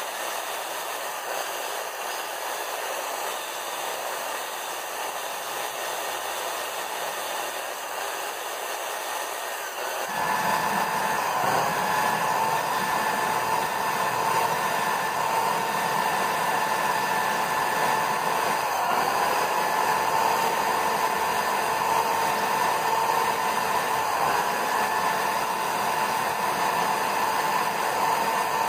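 Electric drill running steadily, spinning a motorcycle exhaust valve against its seat in lapping paste to lap it in. About ten seconds in the sound gets louder and a steady motor whine comes up, dropping briefly in pitch a couple of times.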